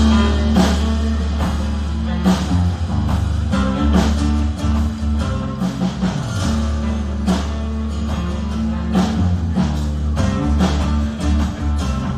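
Rock band playing live: strummed acoustic guitar and electric guitar over a heavy bass line and a steady drum beat.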